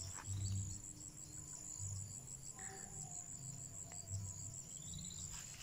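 Insects trilling steadily: one high-pitched, rapidly pulsing trill that goes on without a break, over faint low rumbles.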